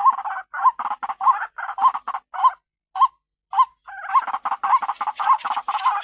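White-breasted waterhen calling, the female ruak-ruak lure call: a harsh, repeated "kru-ak" about every half second or so. The calls thin to two single notes about halfway through, then come back faster and overlapping.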